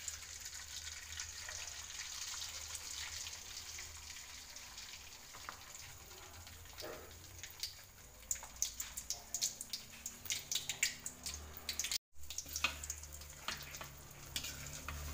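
Beaten egg frying in hot cooking oil in a wok: a steady sizzle, with sharp pops and crackles of spitting oil growing thick from about halfway.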